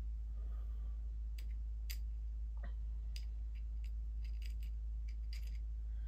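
Light, irregular clicks and taps of hands shifting a rifle scope in its mounting rings, over a steady low hum.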